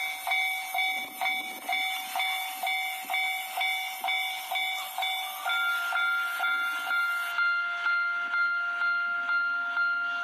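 Japanese railway level-crossing alarm ringing: a repeated electronic ding, about two a second. About halfway through, a second, higher tone joins the dings.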